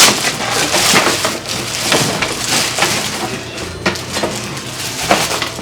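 Cardboard box and packaging being handled and pulled at: continuous crinkling, scraping and crackling with a few sharp clicks, as the coffee maker is worked out of a tight box.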